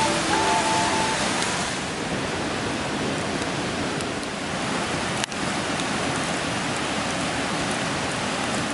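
Fire burning with a steady rushing hiss and a few faint crackles. Background music stops about a second in.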